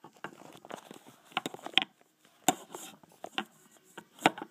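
Handling noise: scattered clicks and knocks, about half a dozen, as the camera is moved and set up on a stand.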